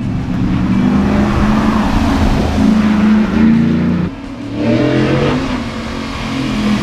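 2012 Ford Raptor's 6.2-litre V8 pulling hard under throttle through a Borla Touring cat-back exhaust. It drops off abruptly about four seconds in as the throttle is lifted, then builds again near the end.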